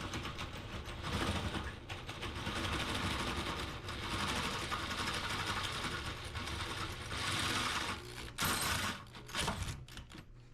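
Power driver running a bolt in with a rapid, steady mechanical chatter for about eight seconds, stopping and starting in short bursts near the end, tightening the gas tank mounting bolt.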